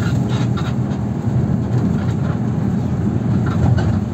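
Steady low rumble of a moving passenger vehicle, heard from inside the passenger cabin.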